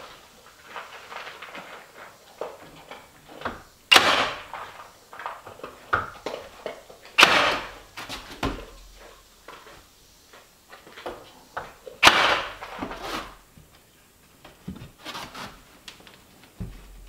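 Slab wood trim boards being handled and fitted against a wall: three loud, sharp wooden knocks several seconds apart, with lighter taps and scuffs between them.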